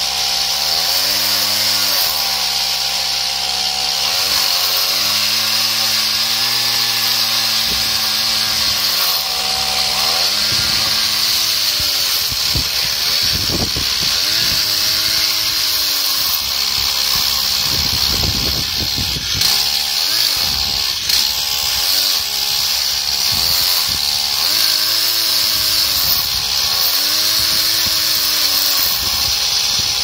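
Chainsaw engine running at full throttle while ripping a lengthwise slab cut through an ash log in an Alaskan chainsaw mill. Its pitch sags and recovers again and again as the chain loads up in the wood.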